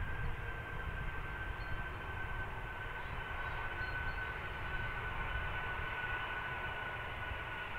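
Boeing KC-135 Stratotanker's four turbofan engines running at taxi power: a steady rumble with one high whine that slowly falls in pitch.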